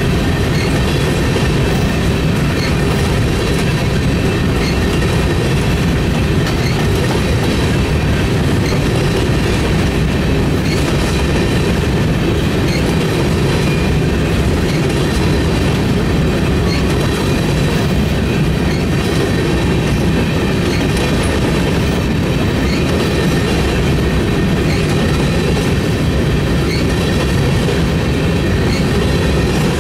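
Covered hopper cars of a Norfolk Southern grain train rolling past at close range: a loud, steady rumble and clatter of steel wheels on the rails that stays even throughout.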